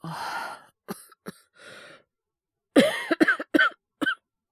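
A young man coughing from a cold, voice-acted. A breathy exhale and a couple of short coughs come first. After a breath, a quick run of four or five harsh coughs follows near the end.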